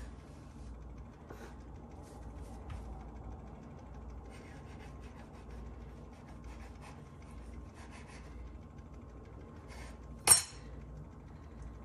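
Faint scraping and light ticks of a kitchen knife cutting soft biscuit dough on a cutting board, with one sharp clack about ten seconds in.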